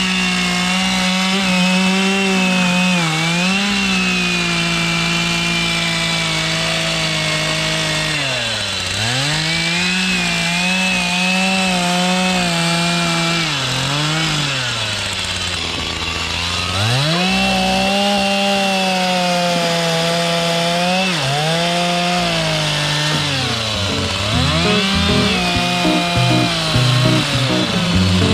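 Two-stroke chainsaw running at full throttle, cutting into a larch slab. Several times it drops back toward idle and then revs up again, most sharply a little past a third of the way in and just after halfway.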